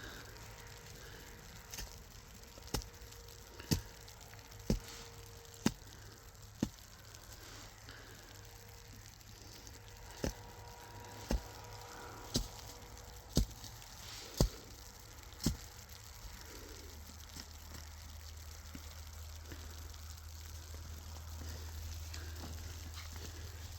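Sharp knocks or strikes about once a second, six in a row, a pause of about three seconds, then six more, over a steady faint hiss.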